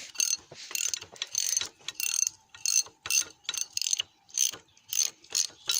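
Hand ratchet wrench clicking in quick repeated strokes, about three a second, backing off bolts.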